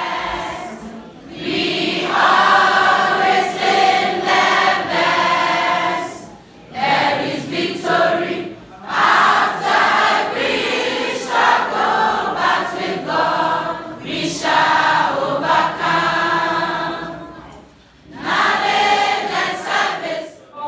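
A group of students singing together as a choir, in phrases a few seconds long with short breaks between them.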